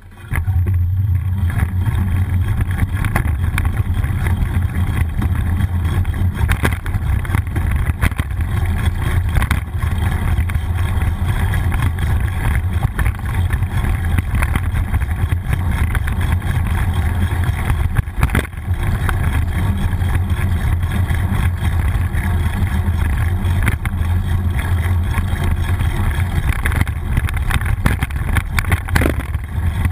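Steady low rumble of wind buffeting and road vibration picked up by a GoPro HERO960 mounted on a moving bicycle, as the bike rolls along city streets.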